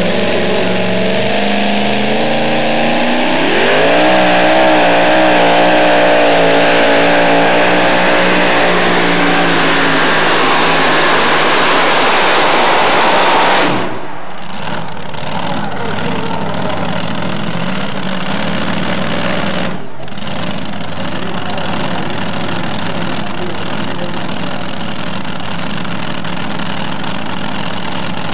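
Pulling truck engine revving up on launch, then held at full throttle with a wavering pitch for about ten seconds while dragging the weight-transfer sled. About 14 s in the throttle is cut, the pitch falls away, and the engine settles to a lower steady running.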